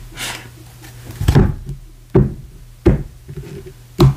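Tarot cards being knocked against a tabletop: four short knocks at uneven spacing, about a second apart.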